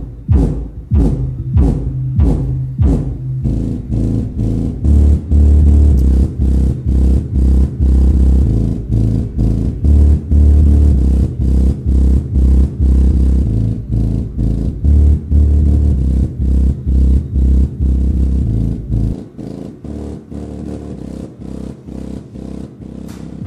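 Bass-heavy music with a steady beat played through an Infinity Primus 1270 12-inch subwoofer in a large enclosure, its deep bass notes coming and going. About nineteen seconds in the deepest bass drops out, leaving lighter, quieter beats.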